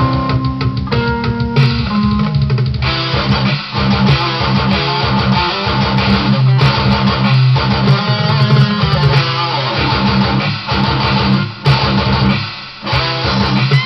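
Electric guitar playing an original metal piece: a few held single notes, then from about three seconds in, dense, fast riffing that carries on.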